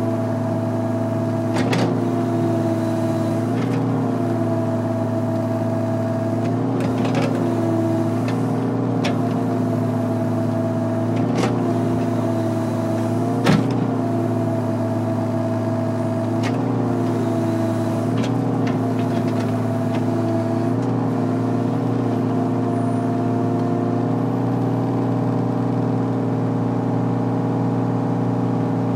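Volvo excavator's diesel engine running steadily, heard from inside the cab. Its note dips briefly every two or three seconds as the hydraulics are worked. Sharp clicks and knocks from the machine come in between, the loudest about halfway through.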